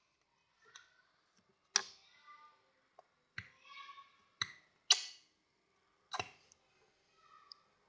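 Scattered sharp plastic clicks and taps, about six in all, from handling a small fragrance bottle while scent is added to the slime mix.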